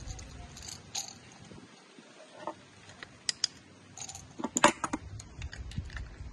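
Small metal clicks and clinks of pneumatic quick-connect fittings being handled and threaded together by hand, with a cluster of sharper clinks about four and a half seconds in.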